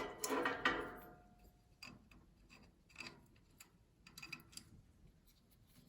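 Irregular small metallic clicks and scrapes of a spanner working at a tight brass pilot-jet fitting on a gas heater's pilot assembly.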